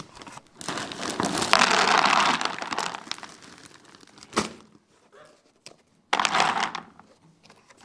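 Dry monkey biscuits poured from a rustling bag into a container: a crinkling, rattling rush for about two seconds, a single sharp knock a little later, then a second short rush.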